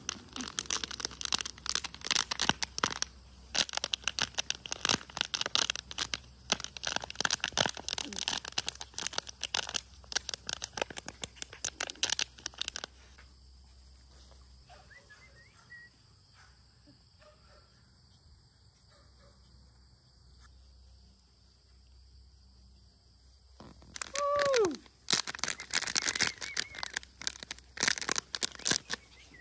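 Rustling and crackling in quick clicks, loud for the first dozen seconds and again near the end, with a quieter stretch between that holds a faint steady high hum. About 24 seconds in there is one short whine falling in pitch.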